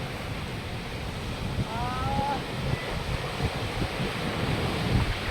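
Surf washing with wind buffeting the microphone in gusts, and a brief faint voice about two seconds in.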